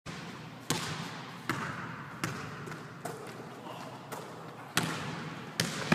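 A basketball bouncing on a hardwood gym floor, dribbled about seven times at a steady pace a little under a second apart. Each bounce echoes in the large hall.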